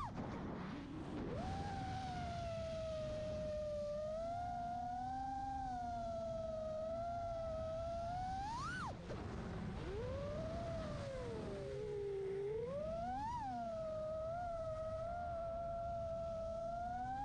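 FPV quadcopter's motors and propellers whining, the pitch rising and falling with the throttle. There is a sharp climb in pitch about halfway through and a dip to a lower whine later on.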